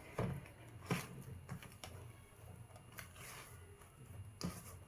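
Soft, sticky bread dough being squished and folded by hand in a bowl: a few faint, scattered squelching sounds.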